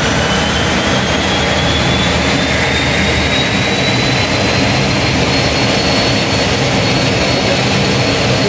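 Pratt & Whitney PT6A turboprop engine accelerating just after light-off during its start, with its propeller turning. A loud steady roar carries a high turbine whine that climbs slowly in pitch as the gas generator spools up toward idle.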